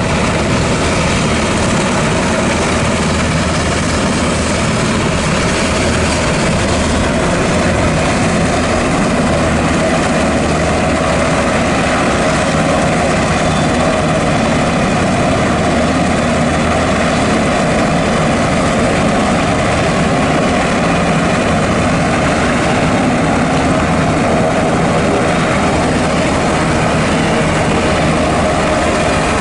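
Sikorsky Black Hawk helicopters running on the ground: a steady, loud turbine and rotor noise with a fast, low beat from the turning rotor blades.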